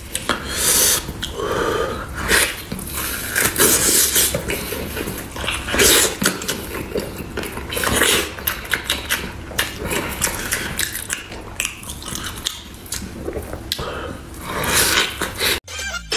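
Close-miked eating sounds: wet chewing, lip-smacking and gnawing as meat is bitten off a large cooked bone, in an irregular run of smacks. It cuts off abruptly near the end.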